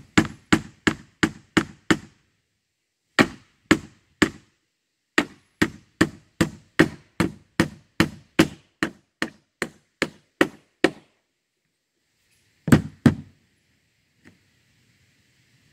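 Hammer driving a nail into a wooden board, in quick runs of blows about three a second with short pauses, ending with two last blows. The nail is hard to get into the board.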